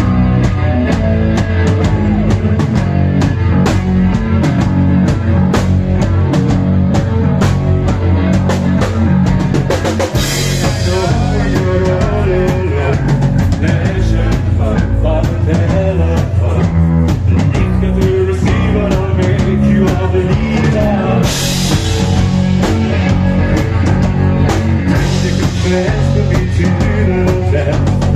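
Live rock band playing: drum kit keeping a steady beat under bass guitar and electric guitar, with cymbal crashes about ten seconds in and again about twenty-one seconds in.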